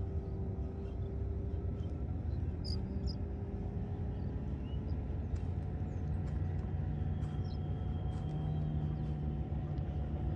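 Steady low rumble with a faint motor-like hum that slides slowly in pitch throughout, and a few faint high chirps.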